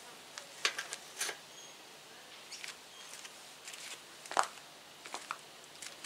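Scattered sharp clicks and knocks of metal and plastic parts as a vintage Mongoose Motomag BMX seat and its seat post are handled and fitted onto the bike frame, with the loudest knock about four and a half seconds in.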